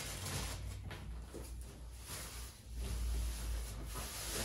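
Faint handling noise of plastic produce bags being moved and set down on a counter, over a low rumble that swells about two and a half seconds in.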